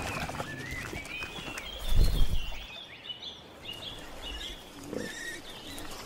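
Small birds chirping and twittering steadily, with a wild boar's loud low grunt about two seconds in and a shorter one near five seconds.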